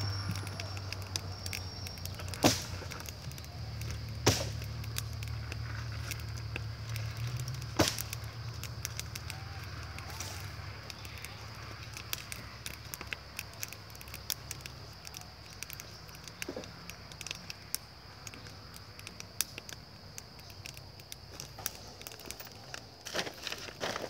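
Wood fire in a brick bottle kiln's firebox crackling and popping during a glaze (glost) firing, with three louder sharp cracks in the first eight seconds. A low rumble fades out about halfway through.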